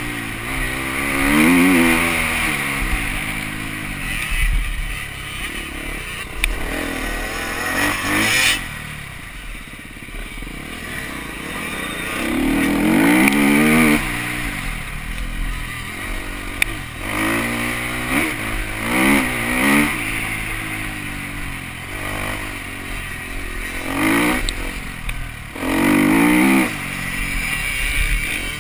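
Husqvarna 250 TC motocross bike engine ridden hard, revving up and backing off again and again, its pitch climbing through each burst of throttle and dropping as it shifts or closes. About a third of the way in it goes quieter for a few seconds with the throttle shut, then pulls hard again.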